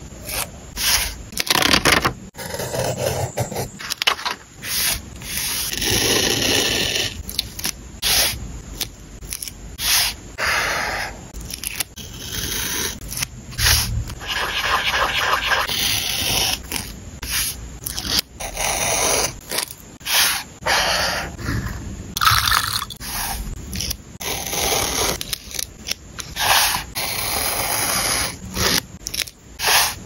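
Close-miked paper-crafting sounds: tape stickers lifted off their backing with tweezers, cut on the backing sheet with a craft knife, and smoothed onto journal paper by hand. They come as a run of short scrapes and rustles with brief pauses between them.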